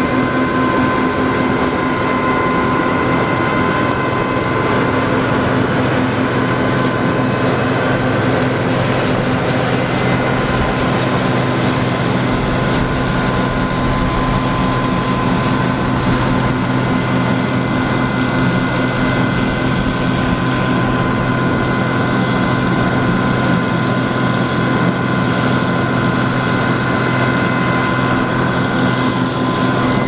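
John Deere 9550 combine's 220-horsepower diesel engine and threshing machinery running steadily under load while harvesting swathed rye, a constant drone with several steady high tones over it.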